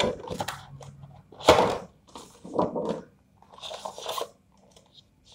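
Packaging being handled: a clear plastic cover lifted off a cardboard headphone box and the box and contents handled, in several short, irregular bursts of noise, the loudest about a second and a half in.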